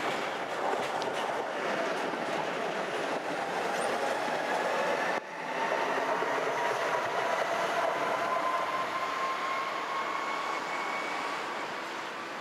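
An older high-floor Gothenburg tram passing close, its wheels rumbling and clattering on the rails. About five seconds in, the sound cuts abruptly; after that, a whine that slowly rises in pitch runs over the rumble.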